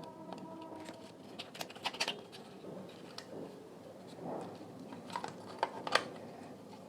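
Scattered clicks and taps from plastic speaker parts and tools being handled while the speaker is taken apart, a few sharper ones about two seconds in and again near the end.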